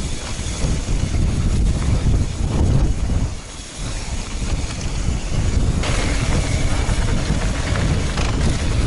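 Wind buffeting a helmet-mounted action camera's microphone on a fast mountain-bike descent, over the noise of tyres rolling on dry dirt. The noise is steady and strongest in the bass, with a brighter hiss joining in about six seconds in.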